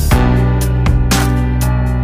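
Background music: sustained musical notes over a beat.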